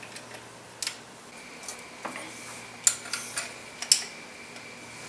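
A few light, sharp metallic clicks and clinks, about five spread over the seconds, as hand tools and engine parts are handled in an engine bay. A faint steady high tone sits under them from about a second in.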